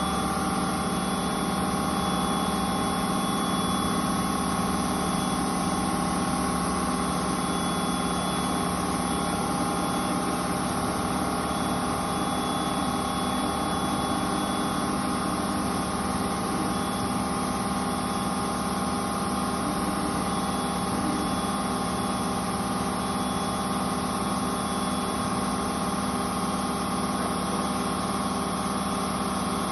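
Rambaudi 5-axis portal milling machine running, with a steady hum and several held whining tones over machine noise, unchanging throughout.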